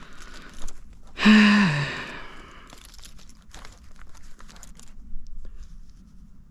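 A man's short voiced sigh about a second in, falling in pitch, among scattered crunching and clicking handling noises.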